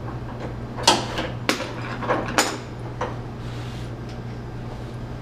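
Pipe wrench on the gas-line union of a cooking range, working the union loose: about six sharp metallic knocks and clanks in the first three seconds, the loudest about a second in. A steady low hum runs underneath.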